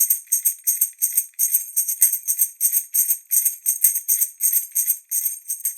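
Tambourine played in a steady, even rhythm of about four to five strokes a second, its metal jingles ringing bright and high.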